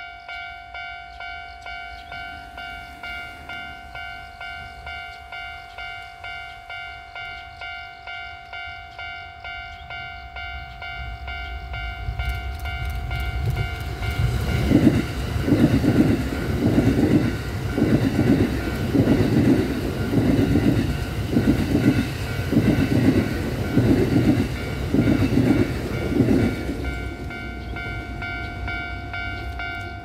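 Japanese level-crossing alarm bell ringing steadily at about two strokes a second. About halfway through, a ten-car Kintetsu 9820/9020-series electric train passes, its wheels clattering over the rail joints in a regular beat for about twelve seconds. The crossing bell then rings on alone.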